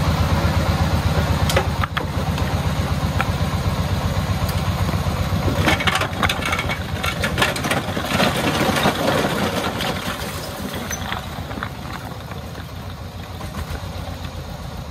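The single-cylinder diesel engine of a công nông farm truck chugs in an even beat while its dump bed tips. A load of concrete bricks slides off and clatters onto the ground, loudest from about six to nine seconds in.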